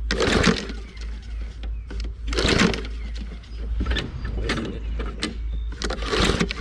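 Old lawn mower engine with a bent crankshaft pulled over by its recoil starter cord about four times, roughly every two seconds, turning over on ether but not firing.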